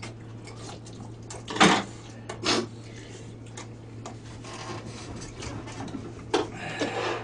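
Eating at a table: scattered clicks and knocks of spoons and chopsticks against bowls and plates, the loudest about a second and a half in, over a steady low hum.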